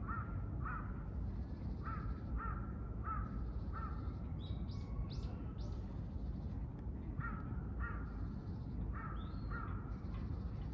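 A crow cawing in short runs of two to four caws, several times over, against a steady low background rumble. A smaller bird gives a few high calls about midway.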